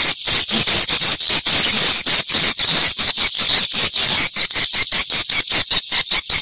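Edible-nest swiftlet calls: a dense, continuous twittering of rapid high-pitched chirps, several a second.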